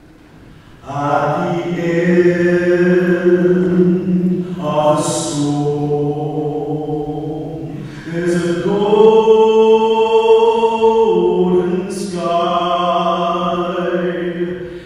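Singers performing a slow song, a man's voice leading with other voices joining, in long held notes. The singing starts about a second in, after a quiet moment, and the phrases break with a hissing 's' sound three times.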